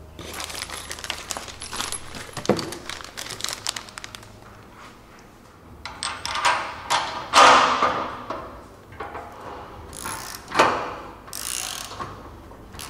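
Steel suspension parts and loose bolts clinking and jingling while tubular upper control arms are handled and fitted to a bare car chassis frame, with a few louder metal clanks in the second half.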